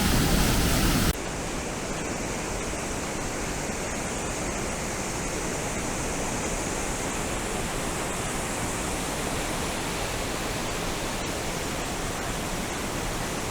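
Waterfall rushing steadily, an even wash of falling water. It is louder for about the first second, then drops a little and stays even.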